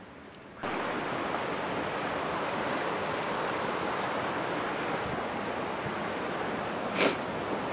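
Steady rush of river water running over rocks in small rapids, starting abruptly about half a second in. A single short, sharp noise near the end.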